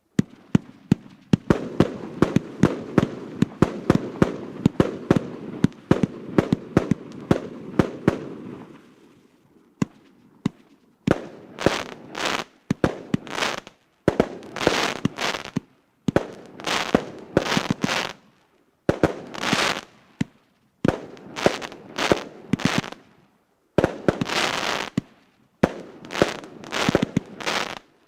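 A 120-shot firework cake firing: a dense run of rapid shots and bursts over a low rumble, then, after a short lull, repeated volleys of crackling, each about a second long with brief gaps between them.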